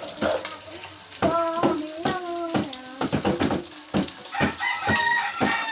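Pancit canton frying in a wok, sizzling, with a metal utensil knocking and clattering against the pan many times. A pitched, held sound comes twice in the background, in the middle and near the end.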